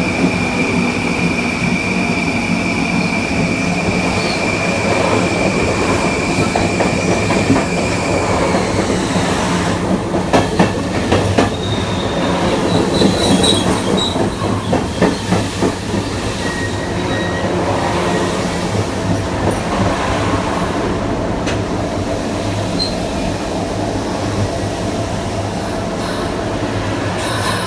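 Onboard an LIRR Kawasaki M9 electric multiple unit: the Mitsubishi (MELCO) IGBT-VVVF propulsion inverter gives a steady high whine for about the first eight seconds, then cuts out. Midway, wheels knock over rail joints with a few brief high squeals, over steady rolling noise.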